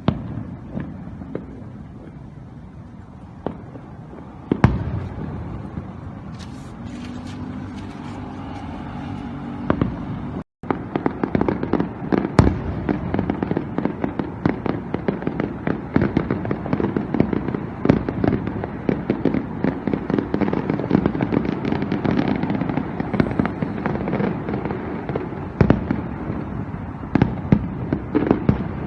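Fireworks display: a few separate bangs over a steady background for the first ten seconds. After a brief break in the sound about ten seconds in, a dense barrage of booms and crackling follows, many shots a second.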